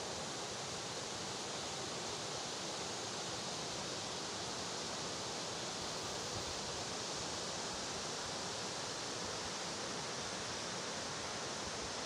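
Steady, even rush of a rocky mountain stream flowing in the valley below.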